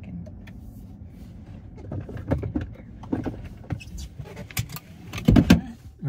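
Scattered clicks, taps and rustles of handling inside a car cabin over a low rumble, with a cluster of louder knocks about five seconds in.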